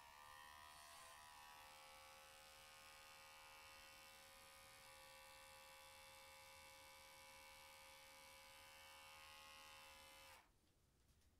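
Electric pet hair clipper switched on, running with a steady buzz for about ten seconds, then switched off.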